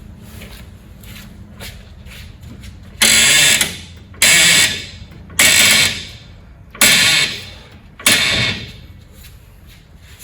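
Impact wrench run in five short bursts a little over a second apart, each winding down as the trigger is let go.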